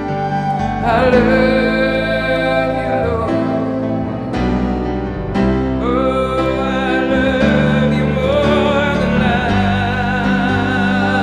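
Worship song: a voice singing long held notes with a wavering pitch over sustained instrumental chords.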